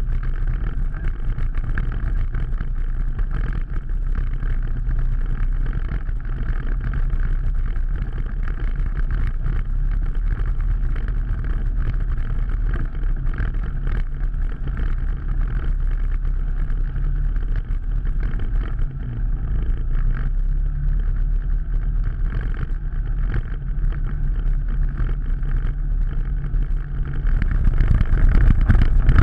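Off-road vehicle engine running steadily under load while driving through shallow water on a flooded trail, with water splashing around the wheels. It gets louder near the end as the vehicle comes out onto a rocky gravel track.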